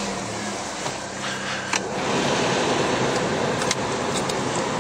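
Car engine running, heard from inside the cabin as a steady hum and noise, with a few light clicks.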